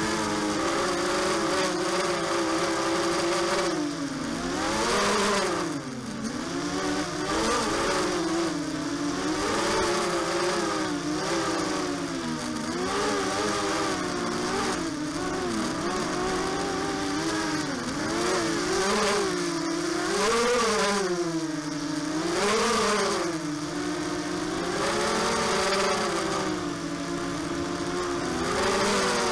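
Brushless motors and propellers of a ZMR250 mini quadcopter with DYS BE1806 motors, heard from the onboard camera: a steady buzzing whine that rises and falls in pitch with the throttle, dipping and climbing sharply several times.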